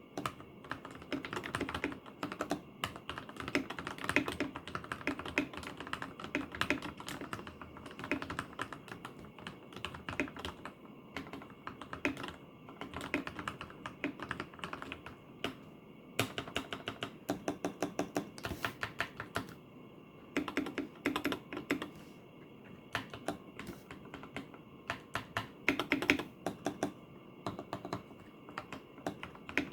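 Typing on an Akko 3087 mechanical keyboard with lubed Gateron KS3 Yellow linear switches and a foam-filled case: a fast, steady run of key presses, broken by a few short pauses.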